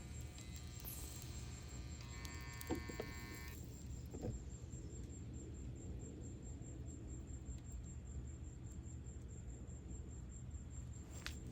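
Small electric motor from a Dirt Devil Vibe stick vacuum driven on overvoltage, giving a high whine that changes about two seconds in and cuts out abruptly about a second and a half later as the motor burns out. A couple of faint pops follow, over a steady low hum.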